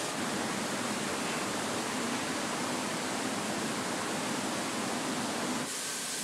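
Steady rushing air noise of factory ventilation, its tone shifting a little before the end.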